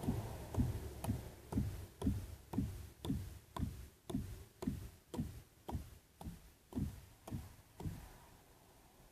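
A steady series of about fifteen dull thuds, each with a sharp click, about two a second, dying away near the end.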